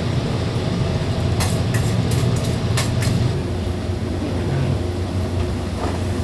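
A steady low mechanical hum, easing slightly about halfway, with several light clicks and knocks in the first half.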